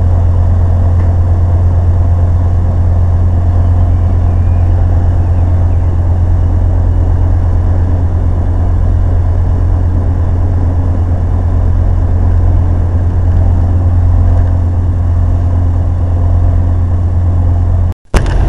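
Passenger ferry's engine running with a steady low drone, heard from inside the cabin. The sound cuts out for a moment near the end.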